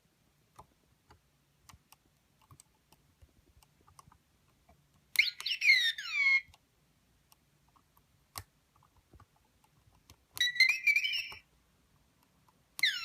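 R2-D2 droid sound effects played from a sound module fitted in a Bandai R2-D2 model: short bursts of warbling, swooping electronic whistles and beeps, about five seconds in, again about ten seconds in, and once more starting near the end. Faint scattered clicks in the gaps between.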